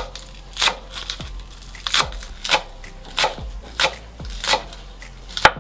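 A cleaver chopping green onions on a wooden cutting board. Each stroke is a sharp knock of the blade on the board, in an even rhythm of about three strokes every two seconds.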